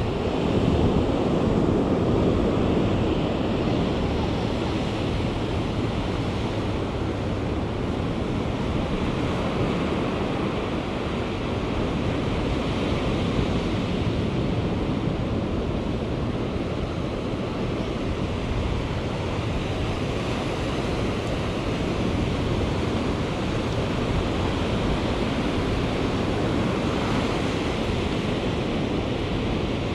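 Ocean surf breaking and washing up a sandy beach, a steady rushing wash of waves.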